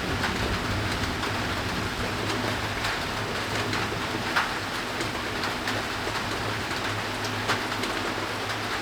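Steady rain falling, with scattered sharp taps of individual drops hitting close by. A low steady hum runs underneath.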